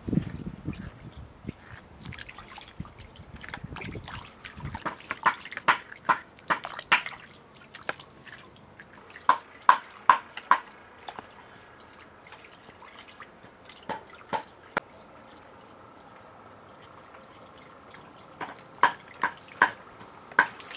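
Water trickling for the first few seconds, then stopping. After that come irregular clusters of single drips plinking into water.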